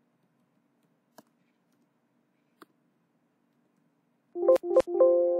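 A computer alert chime: a loud electronic tone made of several steady pitches that sets in sharply near the end and fades over about two seconds, with a few sharp clicks at its start. Before it, two faint isolated clicks, as of keys being struck.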